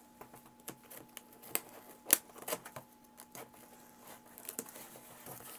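Scissors snipping and scraping through packing tape on a cardboard box: a run of scattered sharp clicks, the loudest about two seconds in.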